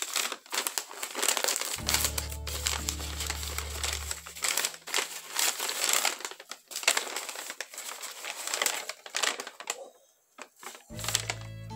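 White packing paper rustling and crumpling as it is handled and pulled from a box in quick, irregular crackles. Background music with low sustained notes comes in briefly about two seconds in and again near the end.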